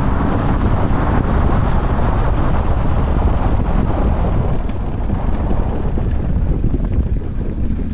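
Wind buffeting the microphone on a moving motorcycle, with the engine running underneath. The wind rush thins out a little past the middle.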